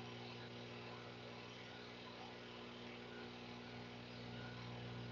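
Steady low electrical hum with a faint even hiss, a mains hum on the recording.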